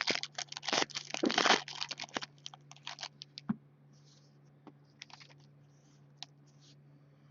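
Wrapper of a trading-card pack being torn open and crinkled in a quick flurry of crackles for about two seconds, then a few scattered light ticks over a faint steady hum.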